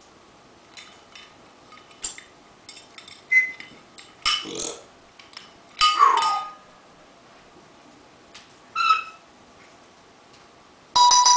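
African grey parrot vocalising on its own: scattered clicks and squeaks, a brief whistle, a rough noisy call, and a falling meow-like call about six seconds in. Short pitched calls follow, the loudest near the end.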